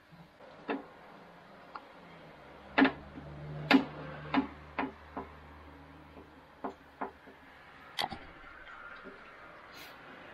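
Irregular sharp metal clicks and taps, about ten over the stretch, as a paint scraper and hands work the oil sump loose from a Nissan RB30 engine block, breaking the gasket seal.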